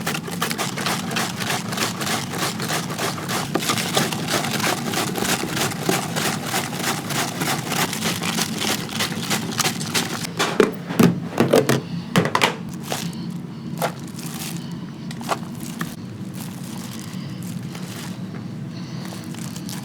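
Kitchen food-preparation sounds: a fast run of clicks and light knocks, then a few louder knocks about halfway through, thinning to scattered single clicks.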